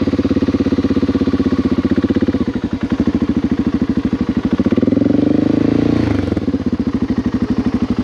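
BMW 650 GS motorcycle engine idling with an even pulse, revving up for about a second and a half about five seconds in, then settling back to idle.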